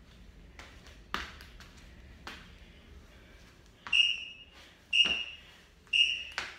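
Interval timer beeping three times, one second apart, counting down the end of a work interval. Before the beeps, a few dull thuds of a foot stomping on a carpeted floor.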